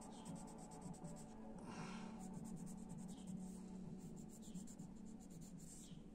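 A small plastic model part being filed by hand: quick, fine scraping strokes, several a second, pausing briefly about a second in and then going on.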